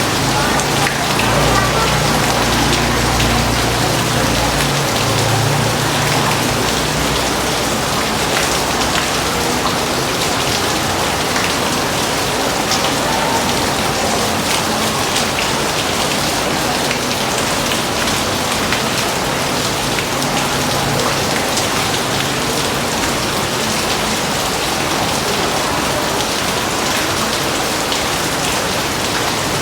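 Heavy rain falling steadily, a dense even patter of drops on a surface. A low rumble sits under it during the first several seconds and then fades.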